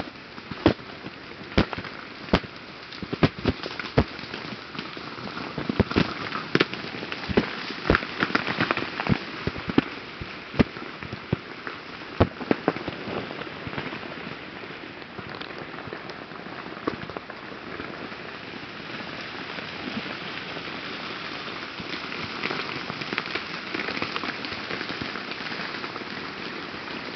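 Ice breaking off glazed tree branches and falling, heard as sharp cracks and clattering hits. These come thick and fast for about the first half, then give way to a steadier patter with only occasional hits.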